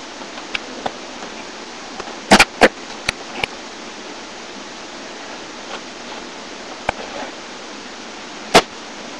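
A basketball hitting the hoop and bouncing: a quick run of sharp bangs about two seconds in, each quieter than the last over about a second, a lighter knock near seven seconds and one loud bang near the end, over a steady hiss.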